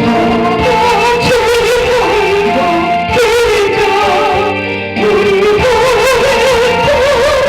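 Solo voice singing a Korean hymn with wide vibrato over steady instrumental backing. There is a short break in the phrase just before the five-second mark, after which the singing resumes.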